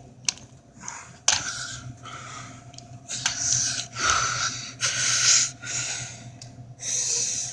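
A person breathing heavily close to the microphone: a run of noisy, panting breaths about a second apart, over a steady low hum.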